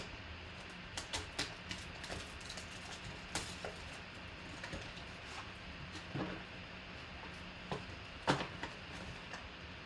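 Plastic shrink wrap crinkling as it is torn off a trading-card hobby box, then the cardboard box's flap opened and the box handled. Scattered short crackles and taps over a faint steady hum.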